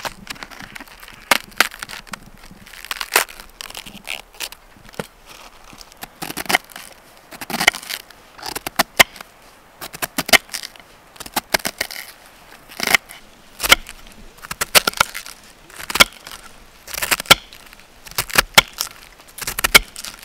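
Chef's knife slicing through raw white cabbage on a wooden cutting board: crisp crunches as the blade cuts the leaves, each ending in a knock on the board. The cuts come in quick runs about once a second.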